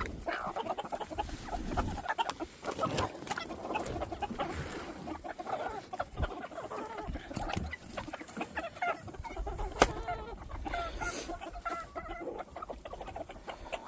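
Backyard chickens clucking and chattering while pecking at scraps, with scattered pecking clicks and a sharp knock near ten seconds in.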